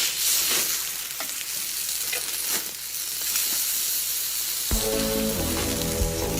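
Food sizzling and crackling on a hot grill, a steady hiss with scattered pops. Music with sustained tones comes in about three-quarters of the way through.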